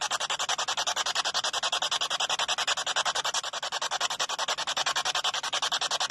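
Spirit box, a radio rapidly sweeping through stations, giving out static chopped into even short bursts, about ten a second, as it scans.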